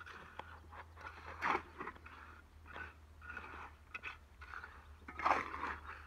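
A shovel scraping and scooping wet concrete from a wheelbarrow, with gritty crunches as the concrete is tipped and worked into wooden formwork; two louder scoops come about one and a half and five seconds in.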